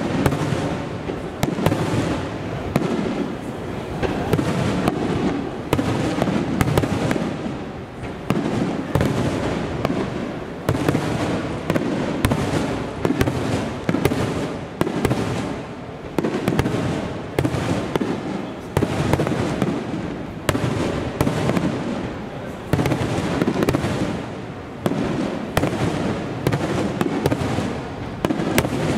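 Fireworks display: aerial shells bursting overhead one after another. Deep booms run together with many sharp cracks and pops throughout.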